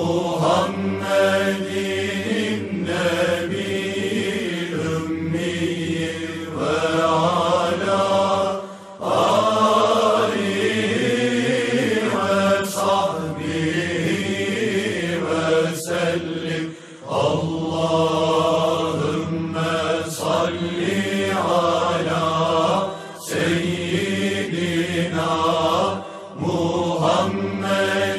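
Islamic religious chanting: voices sing long, drawn-out phrases separated by short pauses every several seconds.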